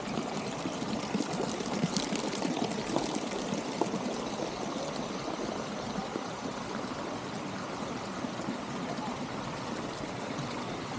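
Fountain water splashing steadily into a pool.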